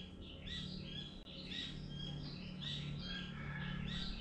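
Small animals chirping, short high chirps about three a second, over a steady low hum.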